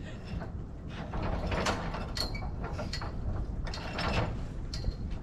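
Bursts of mechanical rattling and clicking, roughly once a second, over a low steady rumble.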